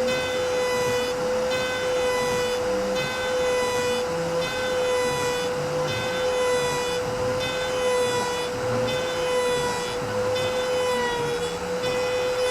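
CNC machine running: a steady high whine with overtones, over shorter tones that change every half second or so as the machine's motors move.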